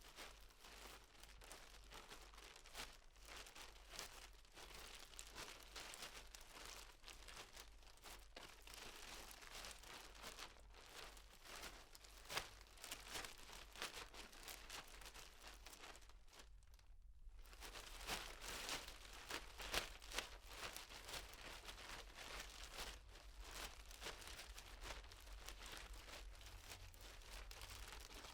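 Plastic bag crinkling and rustling as it is carried by someone walking, heard from medium distance, with a short pause a little past halfway.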